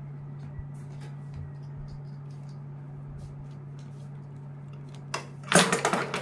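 USHA sewing machine running a short burst of stitches near the end, heard as a quick, loud run of rapid clicks. Before it there are only faint rustles and small clicks of cloth being handled, over a steady low hum.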